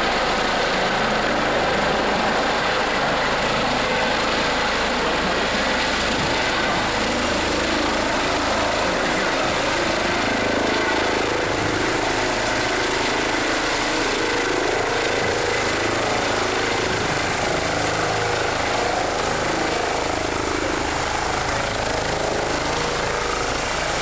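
Eurocopter EC135 air-medical helicopter descending and setting down on its skids: loud, steady rotor noise with a constant high turbine whine over it.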